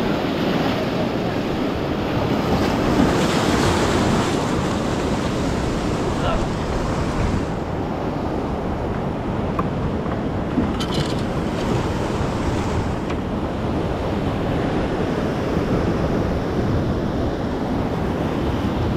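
Ocean surf breaking and washing over the rocks of a jetty, a steady rushing wash, with wind buffeting the microphone.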